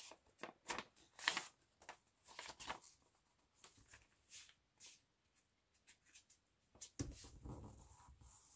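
Faint rustling and crinkling of old book pages being handled and laid on a table: a scatter of short rustles in the first few seconds, then a longer rubbing rustle from about seven seconds in as the pages are pressed flat by hand.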